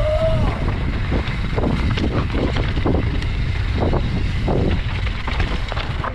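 Wind buffeting the microphone while a mountain bike descends fast over a rocky trail, with a steady low rumble and repeated sharp knocks and rattles from the bike hitting rocks.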